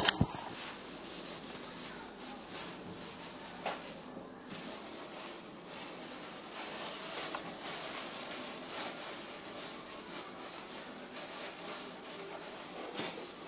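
Thin disposable plastic gloves crinkling and rustling as they are pulled on and worked over the hands, with irregular small crackles.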